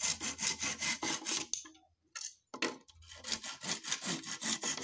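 Hand saw cutting through a thin wooden strip in quick back-and-forth strokes, pausing briefly about two seconds in before sawing on.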